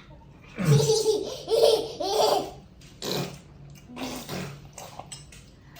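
A young child laughing in a string of breathy bursts, loudest in the first two and a half seconds, then trailing off into softer giggles.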